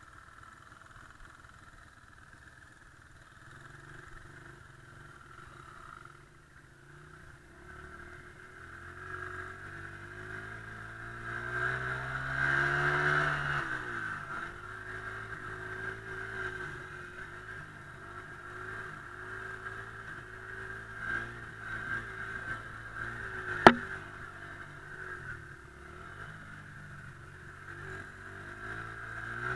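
Dirt bike engine running while ridden on a dirt track, climbing in pitch to its loudest about twelve seconds in, then dropping back and rising and falling with the throttle. A single sharp knock about three-quarters of the way through.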